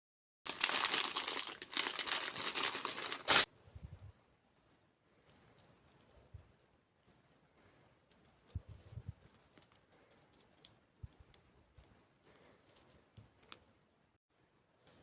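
Plastic packaging being crinkled and torn open for about three seconds, ending with a sharp snap, followed by faint rustling and small handling knocks.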